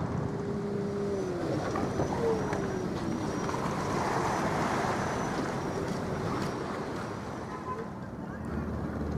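Steady waterfront noise of wind and water, with a distant engine rumble under it.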